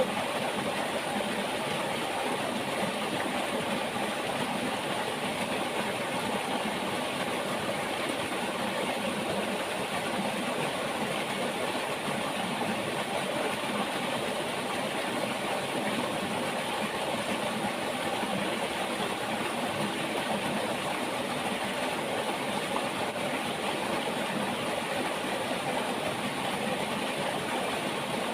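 Steady rush of a flowing river, an even water noise with no change in level.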